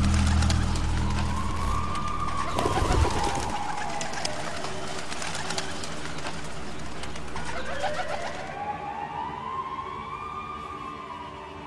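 A flock of pigeons flapping their wings in a dense clatter of wingbeats, under a tone that slowly rises and falls twice.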